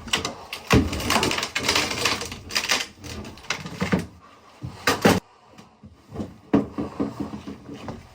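Irregular scraping, knocking and clattering from hand work removing a fiberglass boat cabin floor, with a sharp double knock about five seconds in.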